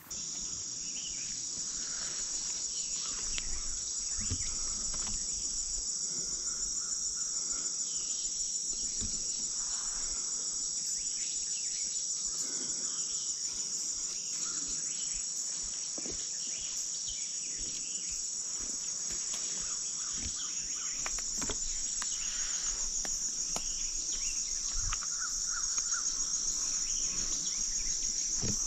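Steady, high-pitched chorus of insects such as crickets, with faint scattered ticks and rustles beneath it.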